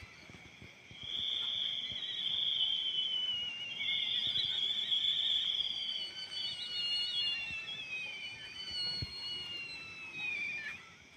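Several high, whistle-like tones overlapping, each held for a few seconds and gliding slowly down in pitch, some with a warble: the unexplained sound heard from the forest.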